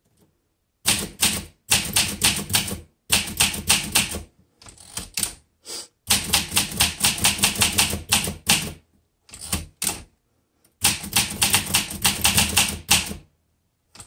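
A 1963 Olympia SM7 manual typewriter being typed on: runs of quick, sharp keystrokes with short pauses between them.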